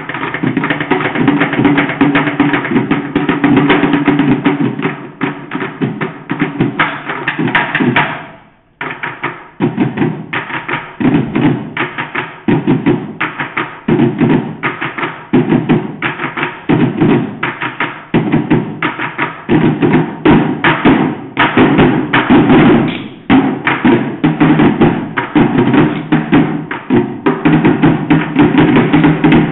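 Buckets drummed with sticks in a fast, dense rhythm that breaks off for a moment about eight seconds in, then picks up again in a steady pattern.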